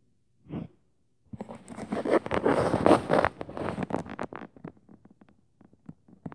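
Close rustling and scratching, likely the recording phone being handled against fabric or another soft surface: a brief crackle, then about three seconds of dense crackling that thins out into scattered clicks.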